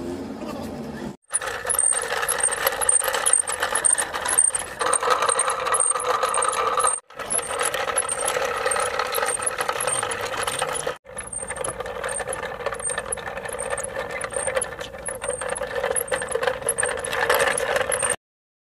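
Steady mechanical rattling with a fast, even ticking on top. It breaks off sharply twice, about seven and eleven seconds in, and stops abruptly near the end.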